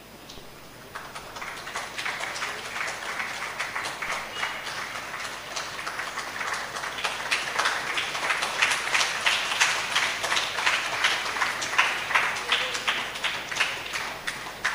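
Audience applauding with many separate hand claps. It starts about a second in and builds, growing louder towards the end.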